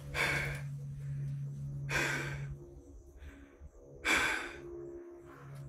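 A man breathing heavily close to the microphone, a loud breath about every two seconds, over a steady low hum.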